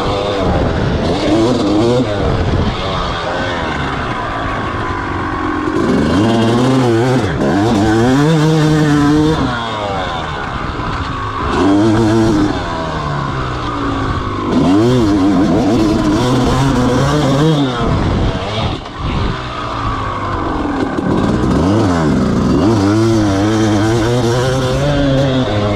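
250cc two-stroke motocross bike engine revving hard and easing off over and over, its pitch climbing and dropping every few seconds as the rider accelerates, shifts and slows.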